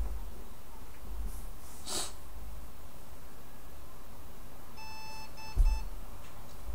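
Electronic beep from the computer, one longer tone then two short ones, about five seconds in, followed by a low bump. A soft rush of breath-like noise comes about two seconds in.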